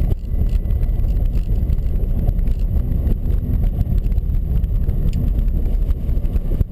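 Steady low rumble of a car driving, engine and tyre noise heard from inside the cabin on a snow-covered road.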